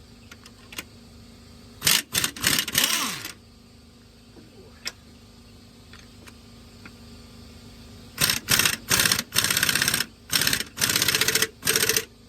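Cordless impact wrench hammering in short trigger bursts as it runs a nut down on the motor mount bolt: a few quick pulls about two seconds in, then a longer run of bursts in the last four seconds.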